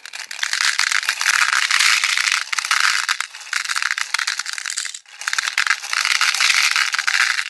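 A stream of tiny beads pouring into a mold: a dense rattle of countless small clicks, breaking off briefly about five seconds in and then starting again.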